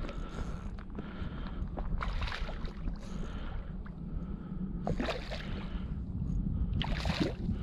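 Wind buffeting the microphone over lapping water, with a few short splashes about two, five and seven seconds in as a hooked striped bass thrashes at the surface. The last splash is the loudest.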